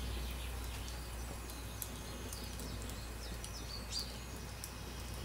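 Quiet ambience: a steady low hum under faint scattered crackles from a wood fire burning in a brick barbecue, with a few short high chirps from birds.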